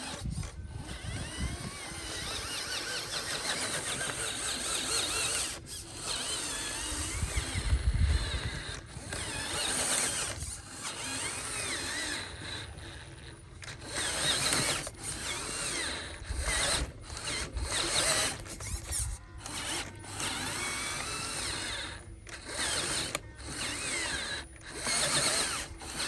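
Electric motors and plastic gearboxes of radio-controlled construction models whirring and ratcheting in stretches, with a wavering whine. The sound stops and restarts many times as the machines are worked.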